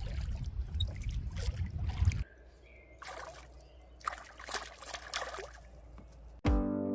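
Water splashing and trickling in irregular bursts over a low rumble that drops away about two seconds in. Acoustic guitar music starts near the end.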